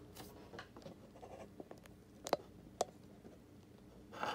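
Hard plastic graded-card case being handled and turned over in the hands: faint scraping and small ticks, with two sharper clicks about two and a half and three seconds in.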